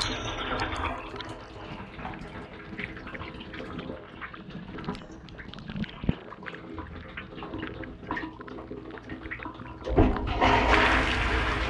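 Inside a KitchenAid KDTM604 dishwasher, the wash spray dies away and water drips and trickles off the racks and spray arm over a low steady hum. About ten seconds in, the spray comes back on with a sudden rush of water hitting the racks.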